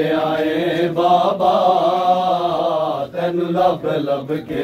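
A man chanting a noha, a Shia lament, in long held notes.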